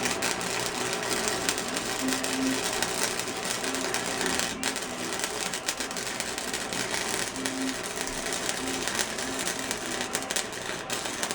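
Flux-core wire-feed welder arc crackling and sputtering steadily through a long weld bead.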